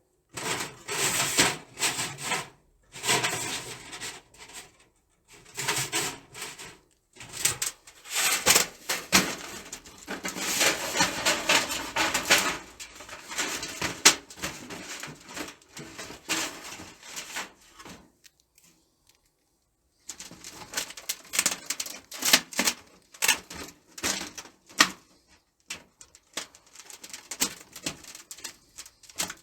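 Thin titanium camp-stove parts being handled and fitted together: irregular clicks, clinks and rattles in clusters, with a pause of a couple of seconds about two-thirds of the way through.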